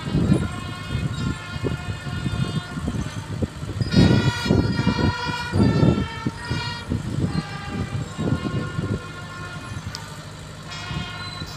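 Steady, held horn-like tones sounding in several stretches, each at a different pitch, over low irregular rumbling.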